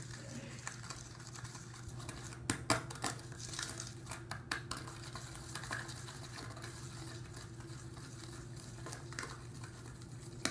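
Slime mixture being stirred in a cup, the stirrer scraping and clicking against the cup at irregular moments, as the activator is worked into the glue and soap. A steady low hum runs underneath.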